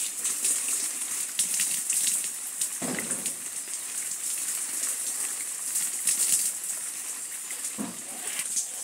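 Pond water dripping, trickling and splashing as a fine current net is drawn up by hand in shallow water, with louder sloshes about three seconds and eight seconds in. Under it runs a steady, crackly high hiss.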